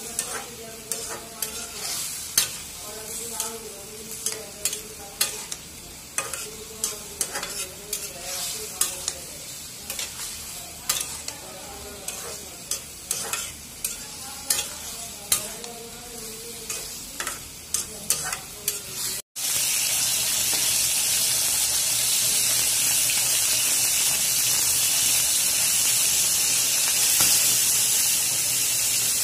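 A metal spatula stirring vegetables in curry sauce in a metal pot, with irregular clinks and scrapes against the pan. After a sudden cut about two-thirds of the way through, fish pieces frying in hot oil in a wok give a steady, loud sizzle.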